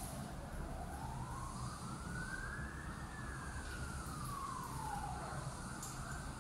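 A siren wailing slowly: its pitch bottoms out at the start, climbs for about three seconds, then falls again for about three seconds, over a steady low background rumble.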